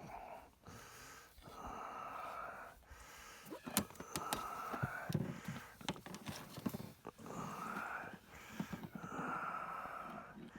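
A spearfisher breathing slowly and heavily through a snorkel, with a wheezy hiss on each breath and short pauses between them. A few sharp clicks come in the middle.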